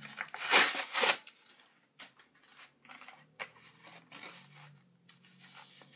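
Plastic blister pack being handled and worked at by hand: two loud rustling swishes about half a second in, then scattered small clicks and crinkles.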